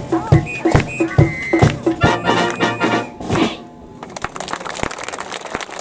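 A high-school wind band of clarinets, saxophones and low brass plays its closing bars on a steady beat and ends on a final hit about three and a half seconds in. Audience applause follows.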